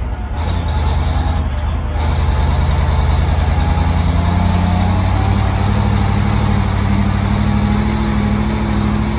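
Old heavy lorry's engine running as it drives, heard from inside the cab, getting louder about two seconds in, with a steady high whine over it.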